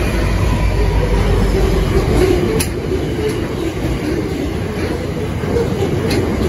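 Freight train passing close by: the deep rumble of the diesel-electric locomotives fades about two seconds in as the last one goes by, then steel-loaded wagons roll past with steady wheel-on-rail noise. Two sharp clacks from the wheels come in the middle and near the end.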